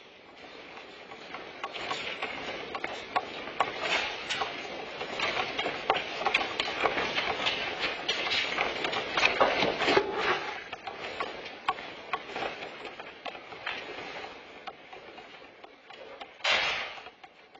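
Classroom furniture, shelf contents and the hook-mounted camera rattling and knocking as an earthquake shakes the building. It is a dense clatter of many sharp knocks that builds up over the first couple of seconds, is strongest through the middle and dies away toward the end, with one separate loud burst of noise near the end.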